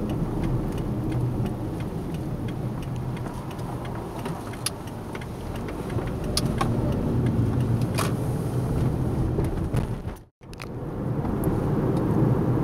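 Car driving, heard from inside the cabin: steady engine and road noise with a few faint clicks. The sound drops out completely for a moment about ten seconds in.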